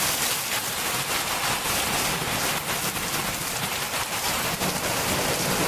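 Rain pouring down steadily: an even hiss with many fine drop ticks through it.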